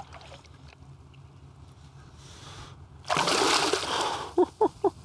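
A big redfish splashing at the surface beside the kayak about three seconds in as it is let go, followed near the end by a quick run of about five short sharp knocks.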